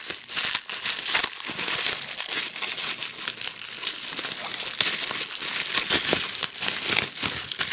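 Bubble wrap crinkling and rustling as it is pulled open and peeled away by hand from a resin model: a dense, unbroken run of fine crackles, mostly high-pitched.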